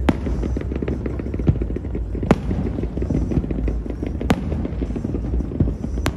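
Fireworks display: four sharp bangs of bursting shells about two seconds apart, with lighter crackling and a steady low rumble between them.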